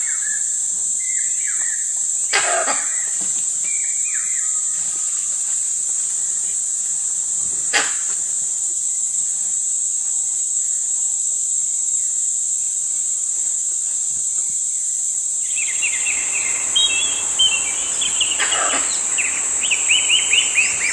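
Steady, high-pitched insect drone of a forest chorus, with a few sharp clicks in the first eight seconds. About two-thirds of the way through, a bird joins with quick, repeated falling chirps that grow busier near the end.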